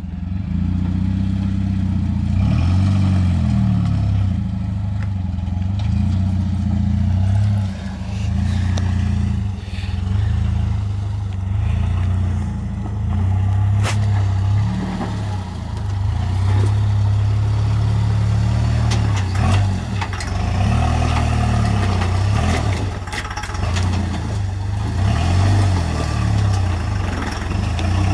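Lifted Jeep rock crawler's engine running at low revs as it crawls over rocks, its pitch dipping and rising again and again as the throttle is worked. There is a single sharp knock about halfway through.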